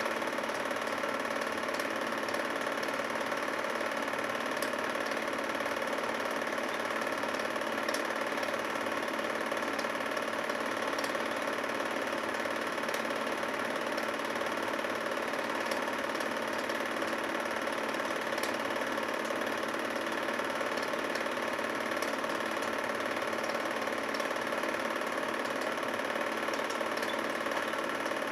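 Home-movie film projector running: a steady mechanical whir with a light clatter.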